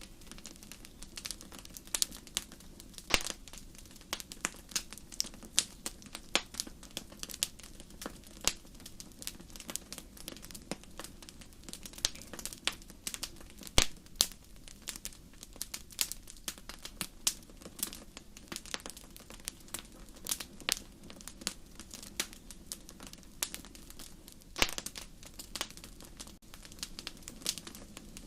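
Rain ambience: many irregular sharp taps and crackles of drops, several a second and some much louder, over a low steady rumble.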